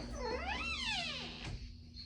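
A cat meowing once: a single call of about a second that rises in pitch and falls again, followed by a sharp click.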